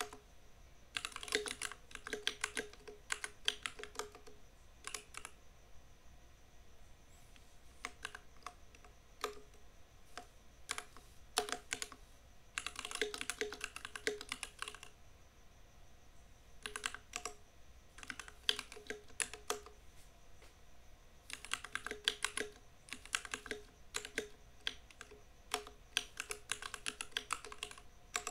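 Typing on a compact mechanical keyboard: quick runs of key clacks in bursts of a second or two, with short pauses between them.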